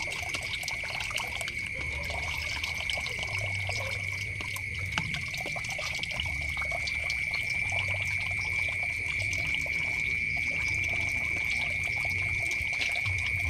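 Water splashing and sloshing in a plastic basin as hands stir and scoop small fish with a plastic colander, with water pouring in from a tap. A steady high-pitched tone sounds throughout.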